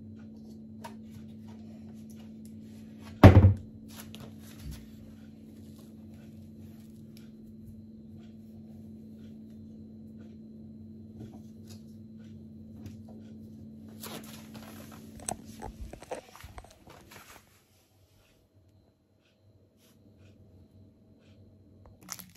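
Handling noise: one loud thump about three seconds in, then scattered light clicks and knocks over a steady low hum, with a short rustle of handling near the two-thirds mark before the hum stops and it goes almost silent.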